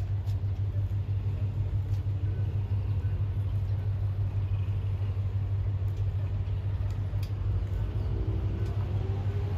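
A steady low engine rumble with a fast, even pulse.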